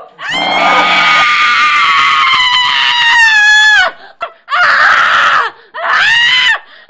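A woman screaming in terror: one long, high scream of nearly four seconds that sinks in pitch at its end, then a ragged breath, then a shorter scream near the end.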